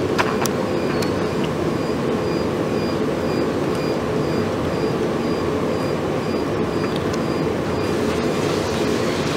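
Steady machine-like background noise with a low hum, unchanging throughout, with a few sharp clicks at the very start and a faint high tone pulsing several times a second.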